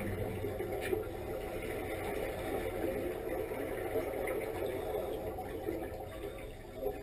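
Steady low underwater rumble with bubbling from a surface-supplied diving helmet's exhaust, muffled as heard by a camera underwater.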